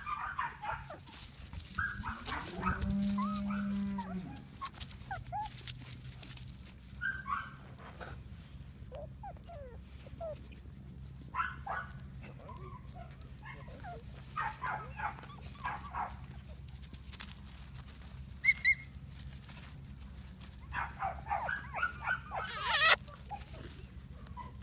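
Six-week-old puppies squealing and yipping in short clusters as they play-fight, with a drawn-out dog cry a few seconds in from a dachshund in the background. A steady low hum runs underneath, and two sharp knocks come in the last quarter.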